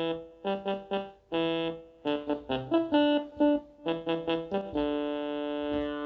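Artiphon Orba handheld synth controller playing a synth melody as its touch pads are tapped: quick groups of short notes between held ones, ending on one long held note.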